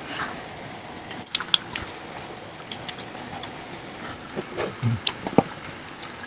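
Mouth and hand sounds of people eating pizza and fried chicken: quiet chewing with scattered small clicks and crunches, and one sharper click about five seconds in.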